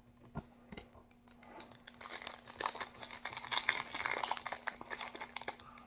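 Yu-Gi-Oh booster pack wrapper crinkling and rustling as it is handled and opened. It starts about two seconds in, after a couple of small clicks, and goes on unevenly to the end.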